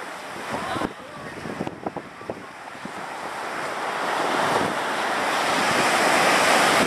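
Ocean surf washing against the shore, swelling steadily louder over the second half as a wave surges in.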